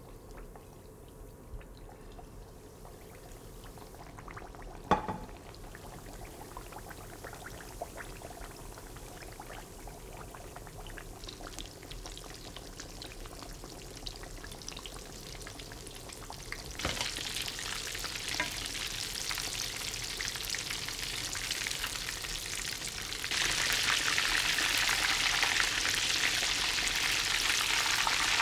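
Food frying in a hot pan: a single sharp knock about five seconds in, then sizzling that starts about two-thirds of the way through and gets louder in a step near the end.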